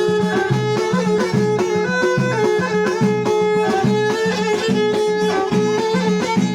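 Instrumental passage of Amazigh folk music: a violin carries the melody over a steady, repeating low beat, with no singing.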